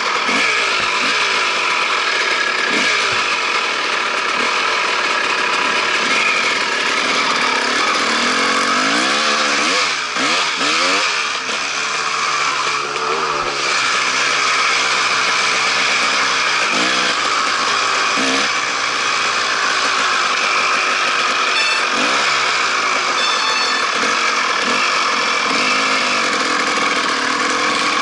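Dirt bike engine running as the bike is ridden along a trail, revving up and down through the gears around the middle, heard from the rider's helmet.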